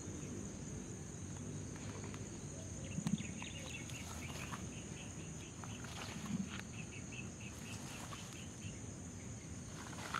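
Insects chirring in a steady high-pitched drone, with a run of quick repeated chirps from about three and a half to nine seconds in. Underneath is a low rumble, with two soft thumps about three and six seconds in.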